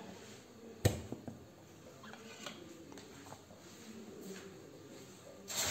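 The lid of a small steel mixer-grinder jar being taken off and set down: one sharp click about a second in, then a few faint taps and clinks. A brief louder rustling noise starts at the very end.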